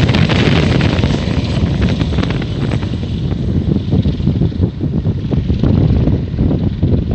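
AW139 twin-turbine helicopter flying past and moving away, its hissing high end fading over the first few seconds, under heavy wind buffeting on the microphone.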